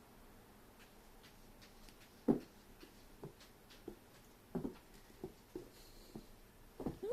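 Scattered light taps and soft thumps at irregular intervals, the loudest about two seconds in, from a pet playing on the floor.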